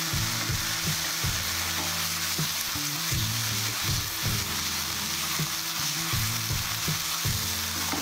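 Beef strips, leeks and onion sizzling in a hot wok with soy and oyster sauce, stirred and tossed with a wooden spatula, which knocks and scrapes against the pan many times over the steady sizzle.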